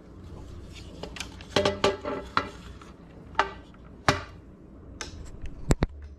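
Clicks and knocks of a USB cable plug and a small plastic V8 sound card being handled as the cable is fitted to the card's charging port: a quick cluster of taps about a second in, then single sharp knocks, with two close together near the end.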